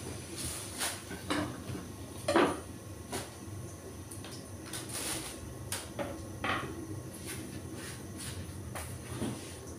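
Irregular knocks and clatter of a knife and cutting board being handled on a table, some with a short ring, the loudest about two and a half seconds in.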